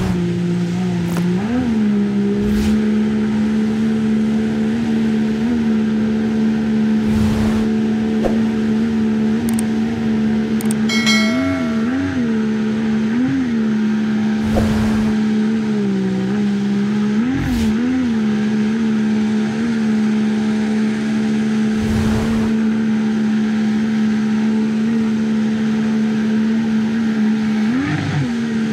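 A 50 hp jet outboard motor running hard on an inflatable boat climbing a shallow riffle, its revs briefly surging and dropping several times over the rapids. Rushing water runs underneath, with a few short thumps.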